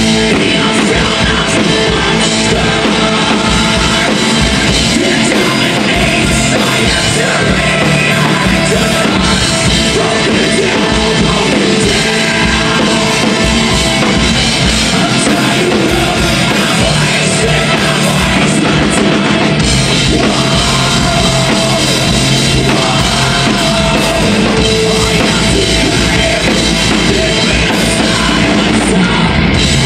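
Live death metal band playing at full volume: distorted electric guitars, bass and drum kit, with a vocalist's harsh shouted vocals over them.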